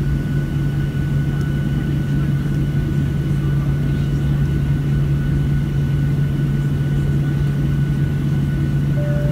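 Boeing 737-700 cabin noise while taxiing: the CFM56-7B engines at low taxi power give a steady low hum with a faint steady whine above it, under a constant rumble.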